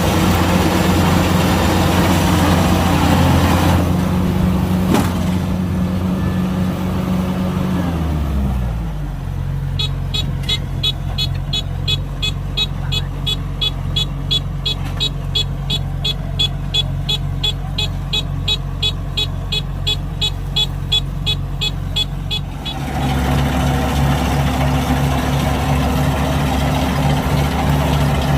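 Kubota DC-105X combine harvester's diesel engine running steadily, dropping to a lower speed about eight seconds in. While it runs slower, a high electronic warning beep repeats about three times a second, then stops as the engine speeds back up.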